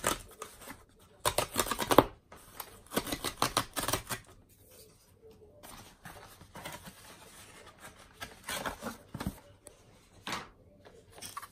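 Cardboard mailer box being torn open along its tear strip, its flap folded back and the boxed charger slid out: bursts of rough tearing, scraping and rustling cardboard, the loudest about two seconds in.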